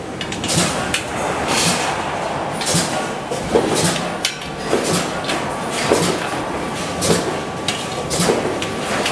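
Metalworking machinery running in a workshop: sharp metallic clanks at an even pace of about one a second, over a steady noise.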